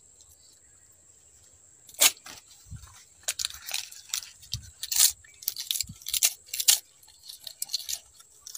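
A man biting and chewing a fresh banana leaf: crisp crunching and tearing snaps starting about two seconds in, roughly two a second.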